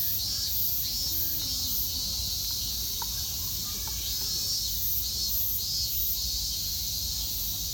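Insects chirring in short high-pitched pulses about twice a second, with a pause in the middle, over a steady low rumble.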